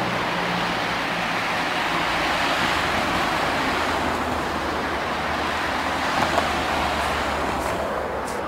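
Road traffic on a wide multi-lane road: a steady hiss of tyres and engines from passing cars, with a couple of brief taps about six seconds in.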